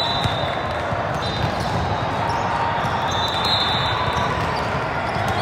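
Busy indoor volleyball hall din: many players and spectators on surrounding courts, with balls being hit and bouncing, heard as scattered sharp smacks over a steady background of voices. A short high-pitched tone sounds about three and a half seconds in.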